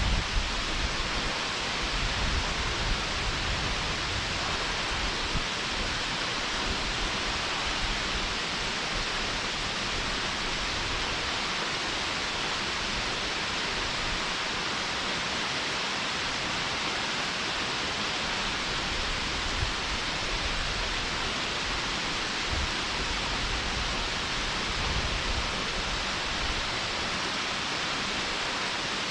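Mountain stream below a waterfall, water rushing in a steady, even hiss.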